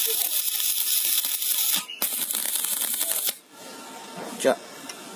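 Stick-welding arc crackling and hissing as the electrode burns on a steel bar; the arc breaks off for a moment near two seconds and stops after about three seconds. A short, sharp sound follows near the end.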